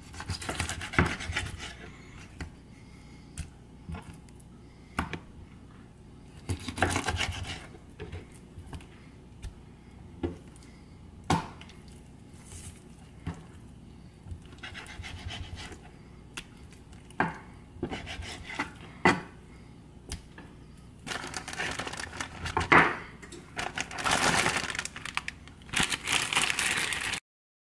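A knife cutting raw chicken leg quarters on a plastic cutting board: irregular taps and knocks of the blade and meat on the board, with short scraping and rustling stretches. Near the end, a plastic zip-top bag crinkles as it is handled.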